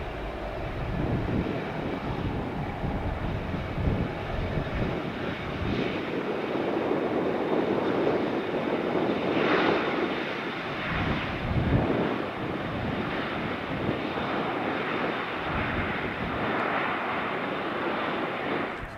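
Airbus A320 airliner's jet engines running at high power as it rolls down the runway: a loud rumble with a thin steady high whine over it, building over the first few seconds.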